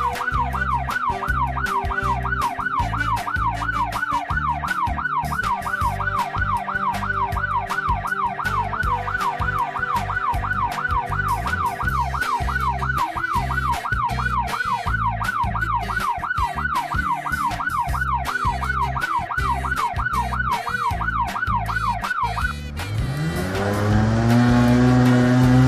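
Electronic emergency-vehicle siren in a fast yelp, wailing up and down about twice a second over a low rumble. About 23 seconds in it stops and a vehicle engine revs up, rising in pitch, then holds steady and louder.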